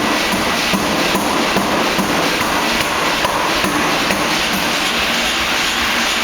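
C-type pneumatic forging hammer striking repeatedly, a bit over two blows a second, over the steady noise of the running machine.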